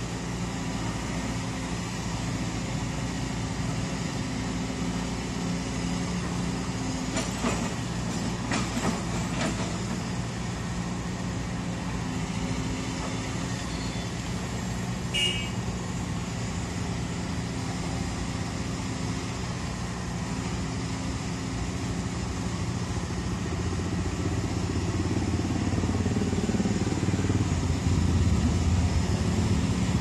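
Diesel engines of a Cat backhoe loader and a dump truck running steadily, with a few clanks about eight to ten seconds in and a brief high toot about halfway. Near the end the engine noise grows louder with a rising note as a motorcycle comes past.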